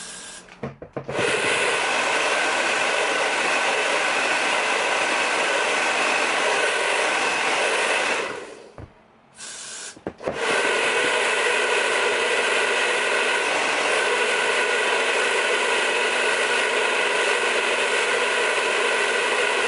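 A few short aerosol spray hisses, then a hand-held hair dryer blowing steadily, drying a sprayed layer of wig glue on the forehead until it goes tacky. The dryer cuts off for about two seconds near the middle and starts again.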